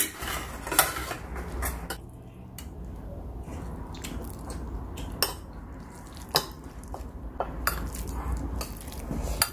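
Metal spoon clinking and scraping against a ceramic plate while scooping rice, with scattered sharp clinks, one of the loudest about a second in.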